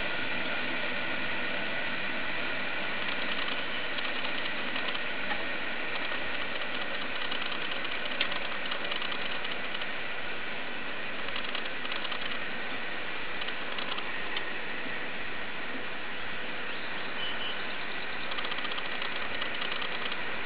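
Steady rush of water through a hydronic test rig's partially open temperature control valve and automatic flow control valve, with a few faint steady tones in it. A small click about eight seconds in.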